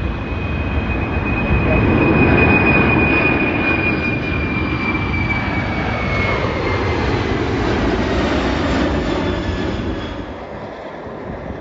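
Jet engines of a four-engine Boeing 747-400 freighter at takeoff power as it climbs away: a loud, steady roar with a high whine that slides slowly down in pitch. The roar eases off near the end.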